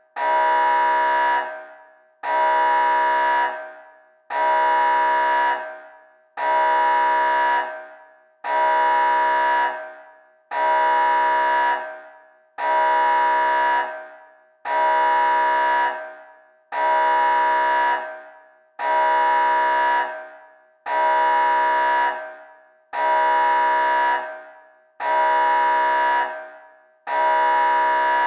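Nuclear alarm: a loud, horn-like alarm tone of one steady pitch, sounding in repeated blasts about every two seconds. Each blast is held for about a second and then fades away before the next.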